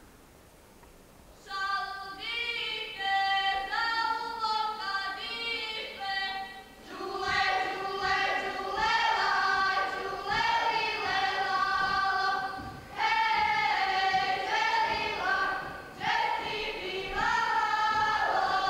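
Unaccompanied group folk singing by the dance ensemble's performers, in long held notes with slides between pitches. It starts about a second and a half in, with a few voices at first, and comes in fuller from about seven seconds in.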